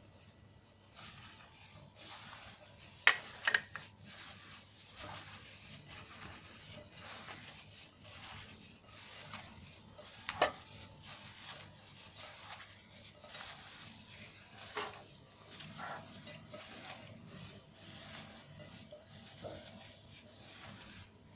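A hand in a plastic glove mixes marinated chicken pieces with chopped onion, tomato and capsicum in a glass bowl: continuous wet squelching and plastic rustling, with a few sharp clicks against the glass, loudest about three seconds in and again about ten seconds in.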